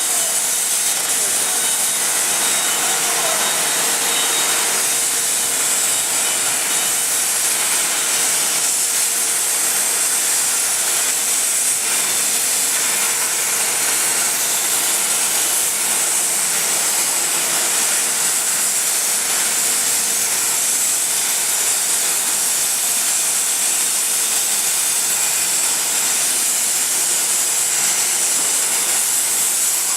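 CNC plasma cutting torch cutting metal: a steady, loud hiss of the arc and its air jet, with a faint steady hum beneath, unbroken throughout.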